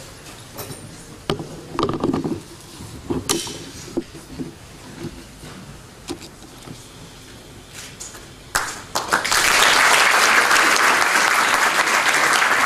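Audience applauding a scholarship recipient as he receives his contract. The applause starts suddenly about eight and a half seconds in, after a quieter stretch with a few short knocks.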